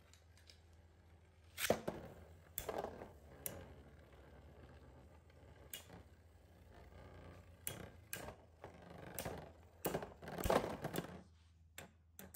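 Metal-wheeled Beyblade spinning tops, including Flash Sagittario, spinning in a plastic stadium and knocking together: sharp clacks come irregularly, a second or so apart, the loudest and longest clatter about ten seconds in, over a low steady hum.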